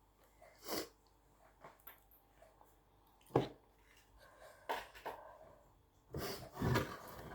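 Close-up eating sounds: chewing and mouth noises in short bursts, with a sharp knock a little over three seconds in and a longer stretch of chewing near the end.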